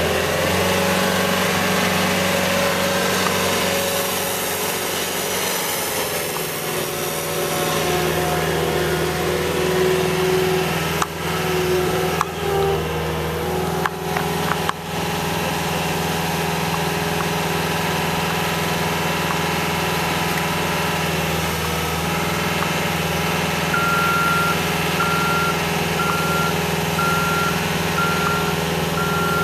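Skid steer loader's diesel engine running steadily under work, its pitch shifting now and then as the machine moves. Near the end its reversing alarm starts beeping, about once a second, as the machine backs up.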